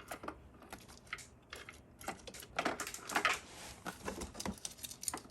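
Irregular clicks, taps and light rattles of a Chevy Tahoe ignition coil pack being handled and worked into place on the engine, with a brief scraping rustle about two seconds in.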